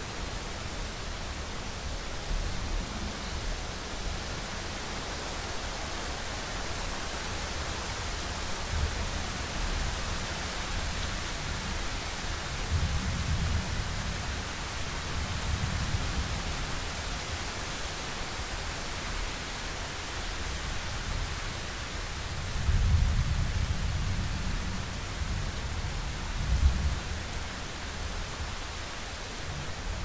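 Thunderstorm: steady rain hiss with deep rolling thunder, one rumble about halfway through and a louder, longer one near the end.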